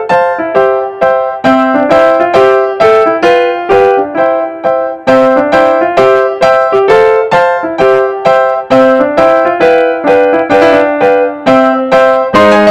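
Background music: a piano-like keyboard melody of evenly spaced notes, about three a second, with lower notes joining near the end.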